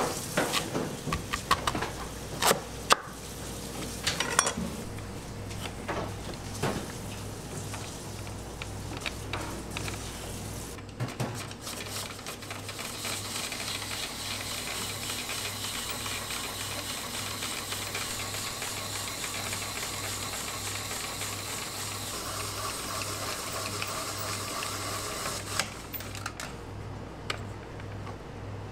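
A heavy kitchen knife cutting a peeled daikon radish on a wooden board, with sharp knocks of the blade on the wood. About twelve seconds in, a tsuma slicer starts shredding the daikon into fine threads, a steady rasping hiss that stops a couple of seconds before the end.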